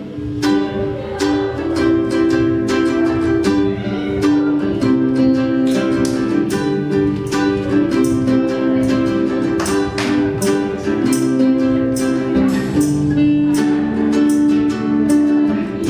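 Acoustic guitars and a small high-pitched plucked string instrument playing an instrumental passage together: a steady run of picked and strummed notes with no singing.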